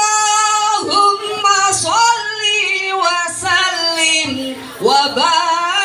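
Young female voices singing an Arabic sholawat (a song of praise to the Prophet), with long held notes that bend and glide from pitch to pitch.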